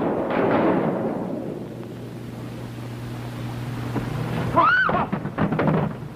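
A noisy rumble fades over the first second or so. Then, about four and a half seconds in, a wooden door swings open on a creaking hinge with one squeal that rises and falls, followed by a quick run of knocks and clatter. A low steady hum from the old optical soundtrack runs underneath.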